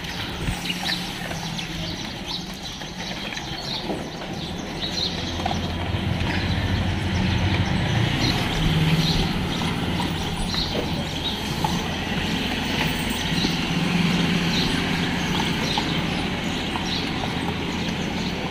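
A steady low motor hum, louder from about four seconds in, with scattered light ticks and taps over it.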